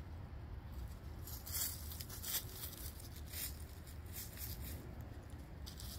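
Hens scratching and pecking through dry fallen leaves: faint scattered rustles and crackles over a low steady rumble.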